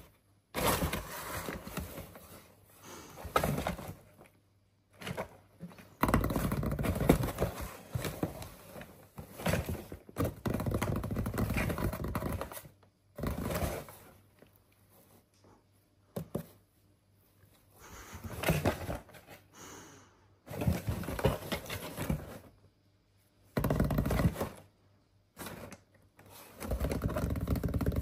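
A kitten scratching and scrabbling at a cardboard box, with clicks and knocks. The sound comes in about a dozen irregular bursts, some several seconds long, with short pauses between.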